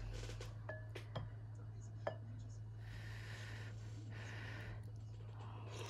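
A wooden spoon knocking lightly a few times against a ceramic soup bowl as seaweed soup is scooped up, over a low steady hum.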